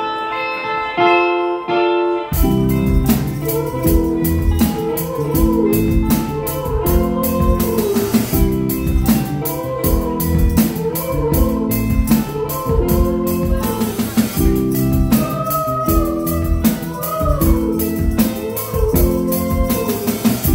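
Live rock band: a clean electric guitar picks a repeating figure alone, then about two seconds in the drum kit, bass and guitars come in together with a steady beat. A lead line that bends up and down in pitch runs over the top.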